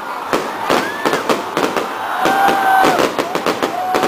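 Aerial fireworks going off: rapid, irregular popping and crackling bangs, several a second, with a few drawn-out high tones over them in the second half.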